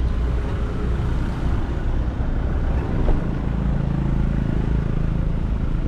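A car running with the engine and road noise heard from inside the cabin as a steady low rumble. A steady engine hum comes up about three seconds in.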